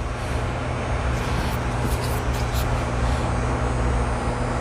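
Steady low mechanical hum at a constant pitch, with a few faint clicks around the middle.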